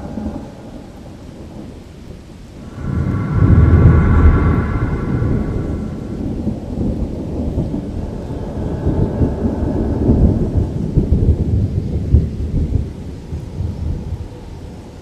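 Rolling thunder: a long, deep rumble breaks out about three seconds in, peaks, then rumbles on unevenly with crackles before easing off near the end.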